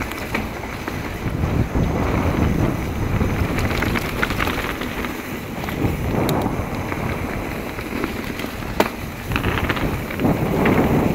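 Mountain bike riding along a dirt singletrack: wind buffeting the microphone over the noise of tyres on the trail, with a few sharp clicks from the bike.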